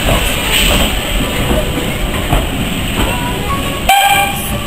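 Narrow-gauge steam locomotive and its train running past along a station platform, with a sharp knock a little under four seconds in.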